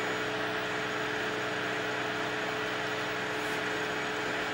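Barrel-mirror scanner club light running under power: its motors turn the mirror barrel with a steady whirring hum.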